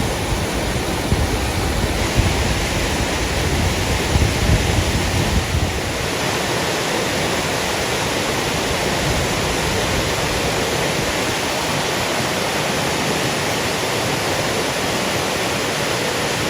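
Steady rush of a mountain stream and waterfall on the Middle Prong. For about the first six seconds it is mixed with an uneven low rumble of wind or handling on the microphone.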